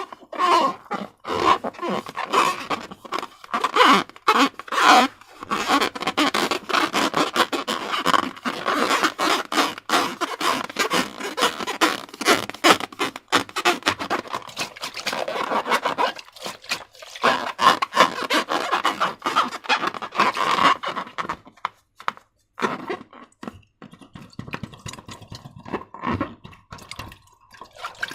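Slime being squished and worked, a dense run of small wet crackles and squelches that breaks off briefly about three quarters of the way through.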